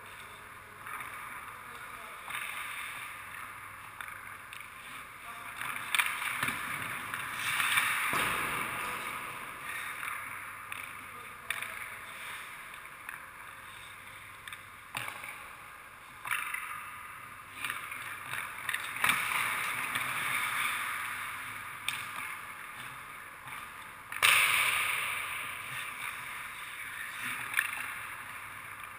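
Hockey skates scraping and swishing on the ice, swelling and fading as skaters move, with several sharp cracks of sticks shooting pucks and pucks striking the goaltender's pads. The loudest crack comes about three quarters of the way through.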